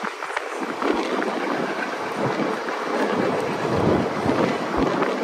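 Wind buffeting the microphone of a phone held out of a moving passenger train, over the steady rush of the train running along the track. The low gusts grow heavier after about the first second.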